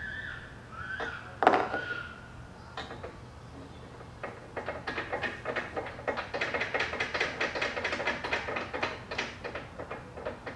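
One sharp knock about a second and a half in, then a fast run of small clicks from about four and a half seconds in. This is a screw being driven through a bracket into the Bedslide's aluminium side rail.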